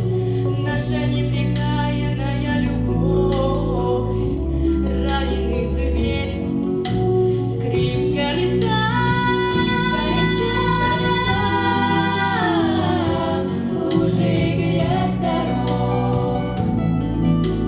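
Three young girls singing a song in harmony over a musical accompaniment, holding a long chord about nine seconds in that slides downward after a few seconds.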